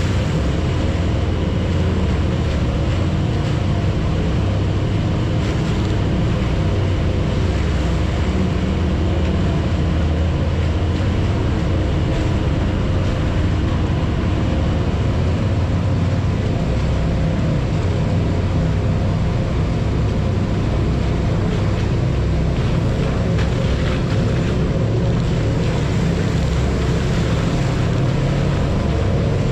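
Side-by-side UTV engine running at a steady pace as the machine drives along, heard from on board, with tyre noise over a wet gravel floor.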